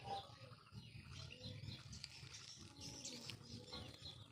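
Faint bird chirps, short and scattered, over a low background rumble.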